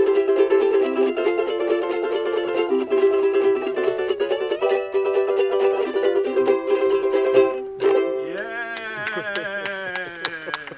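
Two ukuleles playing a lively plucked tune in duet. About eight seconds in they end on a final chord that wavers and slides down in pitch as it fades.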